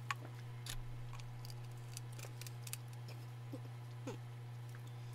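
Faint clicks and small mouth sounds from sipping from a plastic soda bottle and lowering it, the sharpest click just after the start, over a steady low hum.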